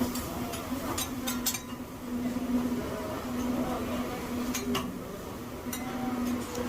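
Scattered clinks of cutlery and chopsticks on plates and dishes at a restaurant table, several sharp clicks in a row about a second in and again near the end, over a steady low hum and faint background chatter.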